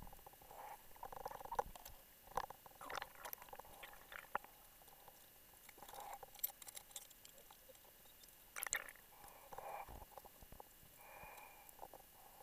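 Faint underwater sounds of a rebreather diver handling a guideline and reel: scattered irregular clicks and knocks with short soft gurgles.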